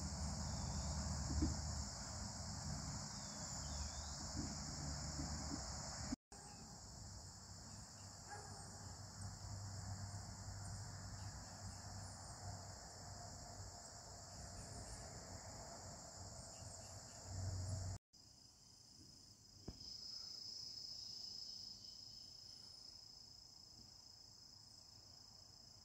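Faint, steady high-pitched chorus of crickets, with a low rumble underneath at first. The chorus breaks off for an instant twice, and after the second break it sits on a single thinner, steadier pitch that fades near the end.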